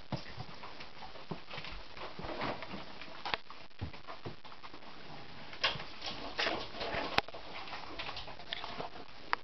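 Dogs moving about on a wooden floor: scattered light taps and scuffs with short rustling, breathy noises, a little busier in the second half.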